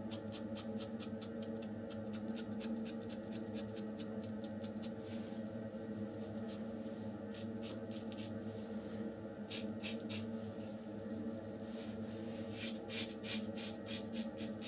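RazoRock German 37 Slant safety razor scraping through beard stubble in quick short strokes, a run of crisp scratchy rasps several a second with a brief pause midway and tighter clusters near the end. The passes go over skin with little lather left, which makes the cut rough on the face. A steady low hum sits underneath.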